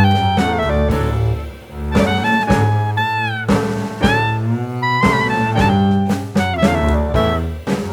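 Jazz background music: a saxophone-like melody that slides between notes over walking double bass and drums.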